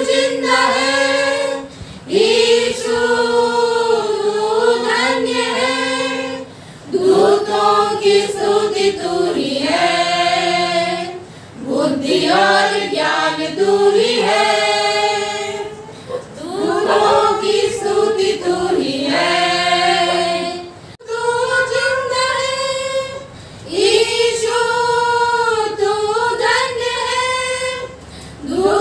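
A small group of women singing a hymn together, unaccompanied, in phrases of a few seconds with short breaks for breath between them.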